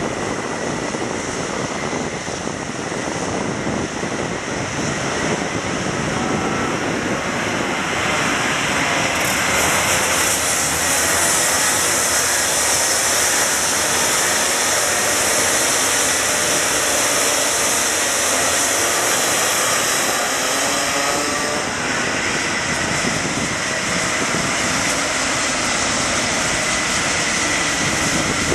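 A pack of racing karts' two-stroke engines buzzing and revving together on the circuit, a dense steady drone with engine notes rising and falling in pitch. It swells about eight seconds in as the pack comes nearer.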